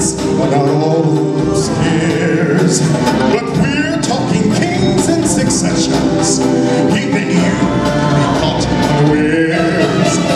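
A singer singing live through a microphone over amplified band music with a steady percussion beat.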